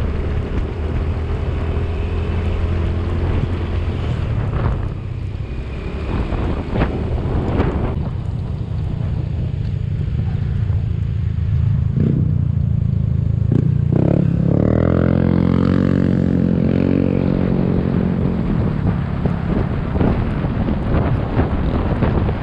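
Motorcycle engine running while riding, with wind rushing over the microphone. About two-thirds of the way through, the engine note climbs and gets louder as the bike accelerates, then holds at the higher pitch.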